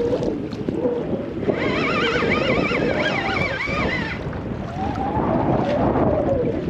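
Wind buffeting the microphone over water slapping against a small boat's hull. From about a second and a half in, a wavering high whine rises and falls in pitch for a few seconds.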